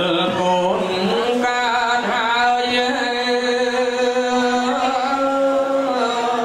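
A man chanting smot, the Khmer Buddhist sung recitation of dharma verse, solo into a microphone. He holds long notes that slide and waver in slow ornaments.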